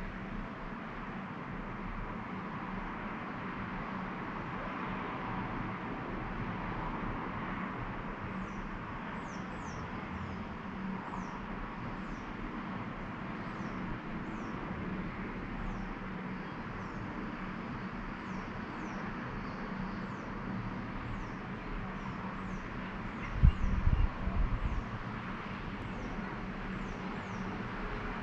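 Outdoor town ambience: a steady hum of distant road traffic, with short, high, falling bird chirps repeating from about a third of the way in. A brief low rumble of wind buffeting the microphone comes near the end.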